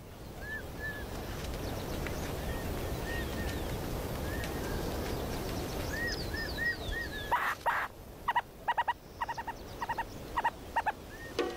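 Short, repeated chirping calls of burrowing owls over a steady rush of wind. About seven seconds in, a run of sharper, louder calls begins.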